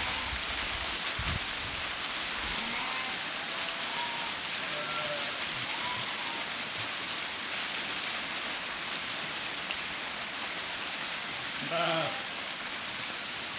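A flock of sheep walking through dry fallen leaf litter, their many hooves making a steady rain-like rustle. One sheep bleats near the end.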